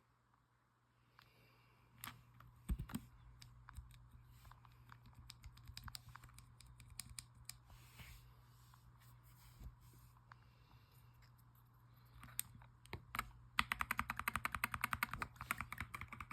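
Mechanical keyboard keys clicking: scattered clicks and knocks, then a fast run of typing near the end.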